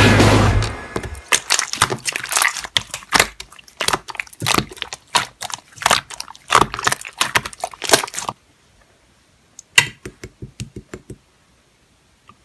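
A fast, irregular run of crackling, crunching clicks and pops that stops about eight seconds in, followed by a brief cluster of fainter clicks a little later.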